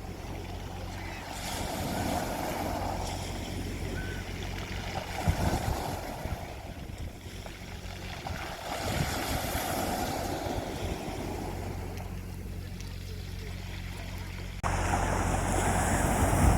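Sea waves washing onto a beach, the surf swelling and easing every few seconds, with gusty wind rumble on the microphone. Near the end the sound abruptly gets louder.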